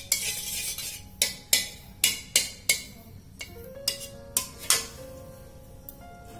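Metal spatula scraping and clinking against a metal kadai while stirring butter, a run of about nine quick strokes that stops about five seconds in. Soft background music plays underneath.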